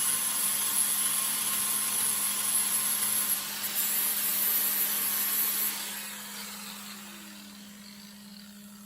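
Handheld power grinder running on sheet metal with a high whine, then let go about six seconds in and winding down with a falling tone.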